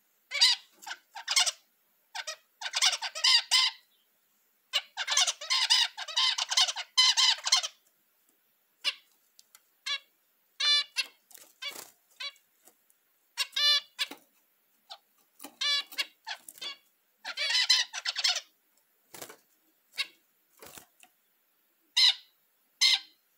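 Zebra finches singing their courtship song: dense runs of quick, buzzy, repeated notes, the longest near the start and again in the second half, with short single calls in between.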